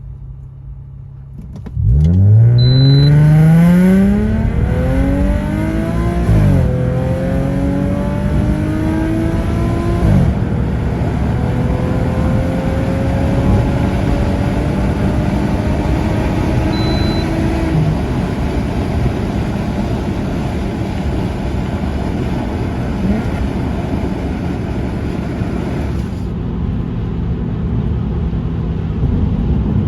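Subaru Legacy 3.0R's flat-six, fitted with a catless stainless exhaust manifold, straight dual titanium mid-pipe and dual titanium rear muffler, pulling hard from idle through the automatic's gears. The engine note climbs, drops back at the upshifts about 6 and 10 seconds in, rises more slowly until about 18 seconds, then settles into a steady cruise.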